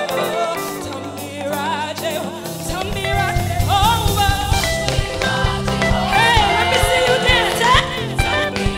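Live gospel band music with a woman singing lead over electric bass, guitars and drums; the bass and drums come in fully about three seconds in.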